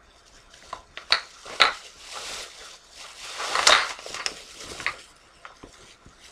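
Candles being handled and put into a bag: several sharp clinks and knocks, with rustling and a louder scrape about halfway through.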